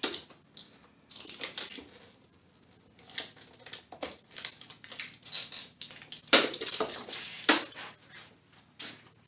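Plastic sheeting lining an epoxy mould crinkling and crackling in irregular bursts as hands press and pull at it to work a cured epoxy strip loose, with a couple of sharper snaps past the middle.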